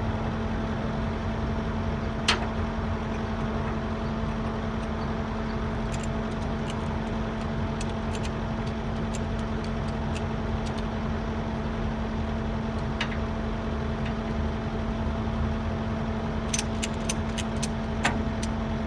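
Construction machine's engine running steadily at a constant speed. There are a few sharp knocks through it and a quick run of light clicks near the end.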